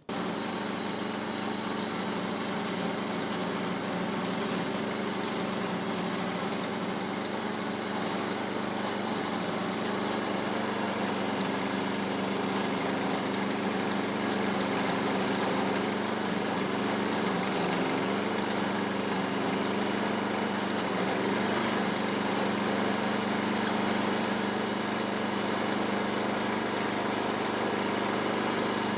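Small gasoline engine of a Harbor Freight bandsaw sawmill running at a steady speed.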